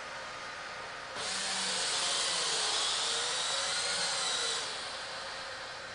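Servo motors of an InMoov humanoid robot whining as they turn its torso. The burst starts about a second in, lasts about three and a half seconds, and sits over a steady hiss.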